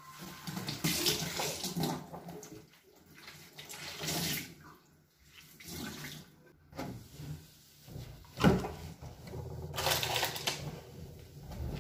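Water running from a tap into a sink in short, uneven bursts, as in washing up or cleaning, with a sharp knock about two-thirds of the way in.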